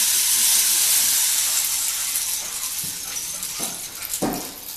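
Motor-tilted rain sticks of a kinetic sculpture giving a steady rushing hiss as their filling pours down inside them, fading toward the end. Two sharp knocks sound near the end.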